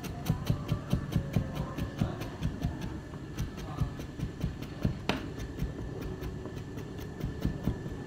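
Chef's knife rapidly chopping food on a plastic cutting board: quick, even knife strikes, about five a second, with one louder chop about five seconds in.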